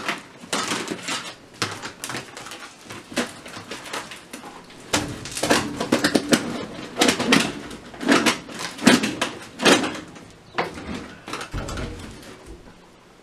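Crinkling and rustling of a flexible aluminium foil duct hose being handled and pushed into a window opening, with small knocks, coming in irregular bursts that are busiest in the middle.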